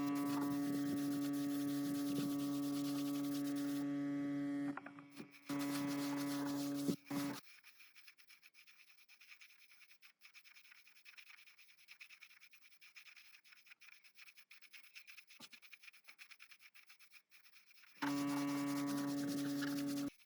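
A small electric power tool's motor running with a steady hum and a hiss, switched off after about five seconds, run again briefly, then left off. Faint scraping and ticking follow until the tool starts again near the end.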